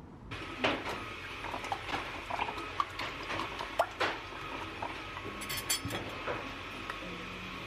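Wire whisk beating an egg mixture in a glass bowl, its wires clicking and clinking irregularly against the glass.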